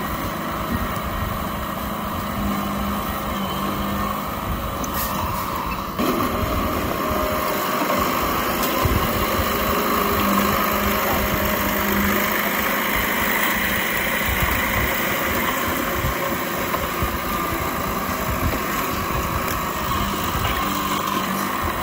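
Diesel engine of an old Komatsu D31P crawler bulldozer running steadily at work. It gets suddenly louder about six seconds in.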